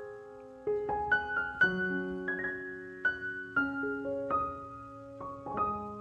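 Background music: solo piano playing a slow melody, notes struck every half second or so and left to ring.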